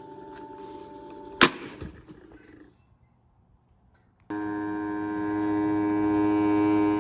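Small electric motor of a toy washing machine humming, with a sharp loud click about a second and a half in. The motor then dies away to near silence, and a little over four seconds in it starts again abruptly with a louder steady hum.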